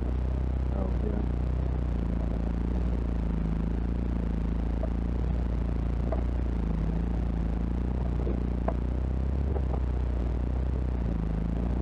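A 4x4's engine running steadily at low speed, heard from inside the cab as it crawls along a rocky off-road trail, with a few light rattles and clicks from the vehicle over the bumps.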